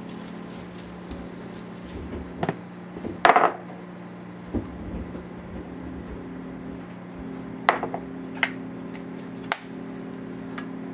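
Plastic spice shakers handled over a metal baking pan: several sharp knocks and clatters as they are shaken, tapped and set down, the loudest about three seconds in, over a steady low hum.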